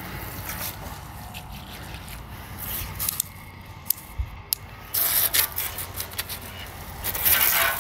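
Garden hose spray nozzle rinsing soapy water off a steel griddle top, the spray spattering on the flat metal plate. The spray drops off a few seconds in and comes back stronger about five seconds in, loudest near the end.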